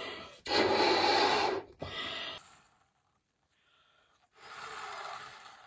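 A person blowing into a latex balloon by mouth: long, noisy breaths forced into the balloon, the first the loudest, with a quiet gap of about a second and a half before the last one.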